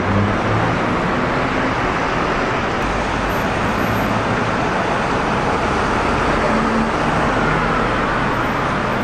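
Steady road traffic noise from a busy multi-lane city street: engines and tyres of passing cars and buses blending into one continuous rush with a low hum beneath.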